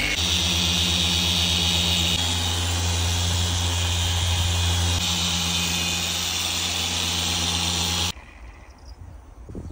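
Corded machine polisher running steadily on car paintwork, a steady motor hum with a fast vibration, as the paint is machine-polished to correct wash marring. It stops abruptly about eight seconds in.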